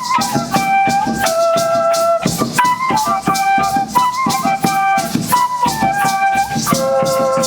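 Instrumental music: a flute playing a stepping melody of held notes over steadily shaken maracas and a low drum.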